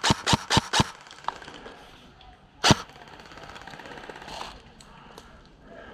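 Airsoft gun firing a quick series of sharp cracks, about four a second, that stops about a second in, then a single further shot about two and a half seconds later.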